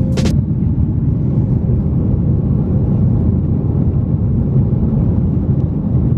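Steady low rumble of an airliner's cabin: engine and airflow noise heard from inside the plane.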